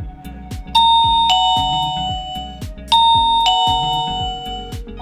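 A Tuya ZigBee smart siren playing a doorbell-type alarm tone: a two-note ding-dong chime falling from a high note to a lower one, sounded twice about two seconds apart, over background music with a steady beat.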